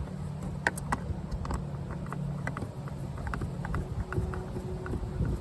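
Irregular small clicks and taps of plastic door-handle parts and screws being handled and fitted, a few a second, over a steady low hum.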